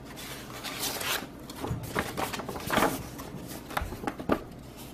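Paper and card rustling and sliding against each other as printed sheets and an instruction booklet are handled, in several short swishes.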